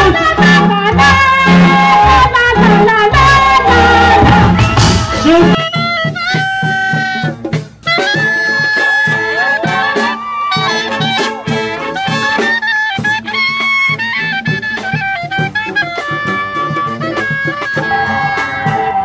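Loud music with a heavy bass beat, then about five and a half seconds in a street wind band takes over: clarinets, flutes and trumpets playing a lively tune in held and moving notes.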